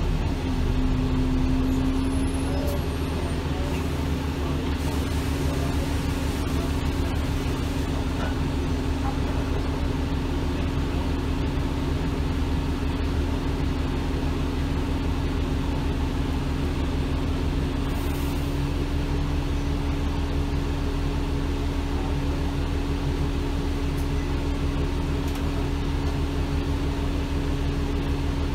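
Alexander Dennis Enviro 400 double-decker bus engine idling with a steady hum, heard inside the lower-deck cabin.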